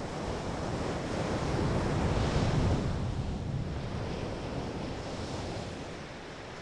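Sea and wind noise: a steady rush of water and wind that swells about two to three seconds in, then eases.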